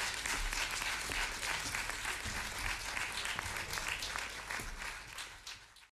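Audience applauding, fading out and cutting off just before the end.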